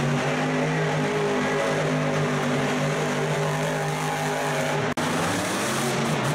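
Monster truck's supercharged, alcohol-burning engine running at high, steady revs, with a deep, even engine note. The sound drops out for an instant about five seconds in, then the engine noise resumes.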